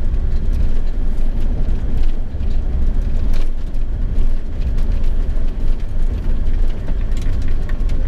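Campervan driving slowly over rough ground: a steady low rumble of engine and tyres with scattered knocks and rattles.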